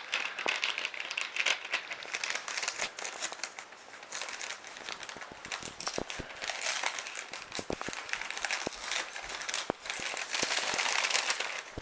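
Gift wrapping paper crinkling and tearing as a present is unwrapped by hand: an irregular run of rustles and sharp crackles, busiest near the end.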